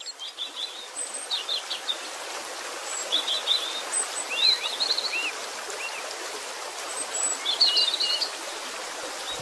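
Birds chirping and trilling in short clusters over a steady rush of running water, like a nature ambience recording. A few lower down-swept whistles come about halfway through, and a denser burst of chirps comes near the end.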